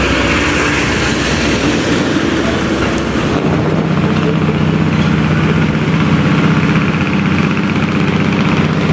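Heavy truck's diesel engine running loud with a rapid pulsing exhaust, the sound of a Jake (engine compression) brake. About three and a half seconds in, the pulsing settles into a steady, even-pitched drone.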